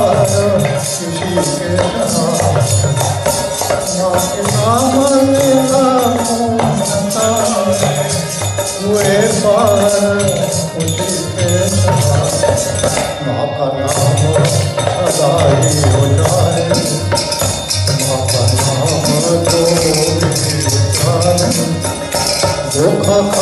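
A man singing a song into a microphone, with shaken hand percussion, like a rattle or shaker, keeping a steady quick beat.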